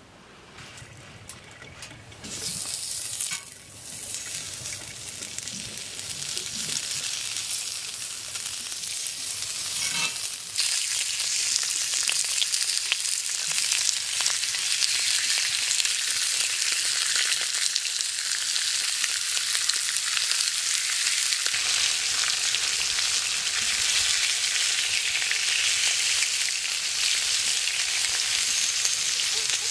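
Marinated chicken breasts sizzling on a ridged cast-iron grill pan. The sizzle starts a couple of seconds in and builds over the first ten seconds as more pieces are laid on, then holds steady. A few metal tong clicks come early on.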